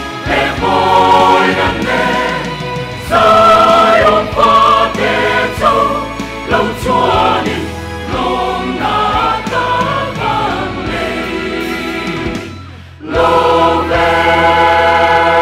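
Mixed choir of women's and men's voices singing a hymn in parts. Near the end the singing fades briefly, then swells into one loud chord held steady.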